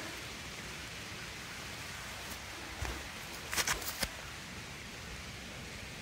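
Steady rain falling, an even hiss, with a few sharp taps about two to four seconds in.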